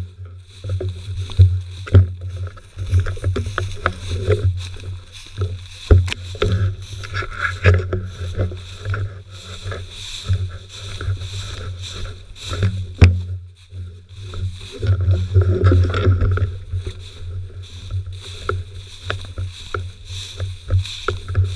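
Footsteps wading through tall, dry dead grass, the stems swishing and crackling against the legs, with scattered knocks and a steady low rumble from the body-worn camera moving on the walker.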